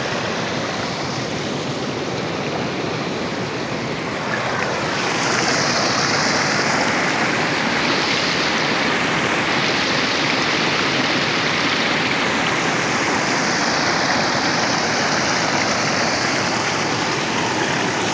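River water rushing steadily, a little louder from about four seconds in.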